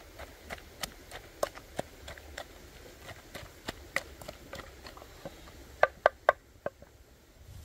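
Wooden pestle pounding chili paste in a wooden mortar: irregular dull knocks of wood on wood, with three sharp louder knocks in quick succession about six seconds in.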